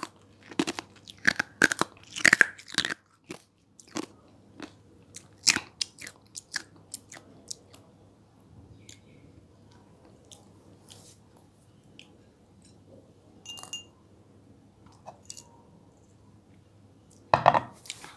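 Close-miked chewing of juicy mandarin segments: wet clicks and smacks, dense for the first few seconds, then sparser and fainter, with one brief louder sound near the end.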